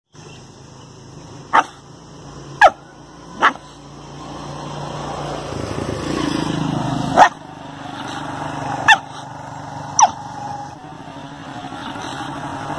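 A dog barking: six short, sharp barks, three in quick succession, then a pause and three more.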